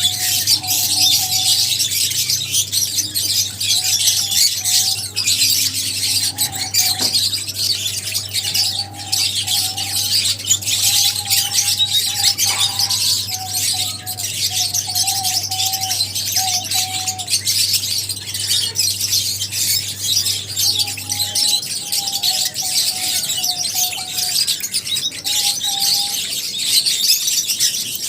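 A flock of lovebirds chirping nonstop in a dense, high-pitched chatter, with a lower wavering call breaking in on and off.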